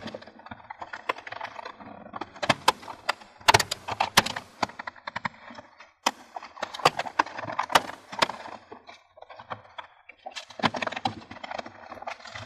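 Plastic snap-fit latches of a Toshiba Satellite C870/C875 laptop's case clicking and cracking open as they are pried with a plastic pry tool. The sharp clicks come in several clusters, with scraping and handling of the plastic case between them.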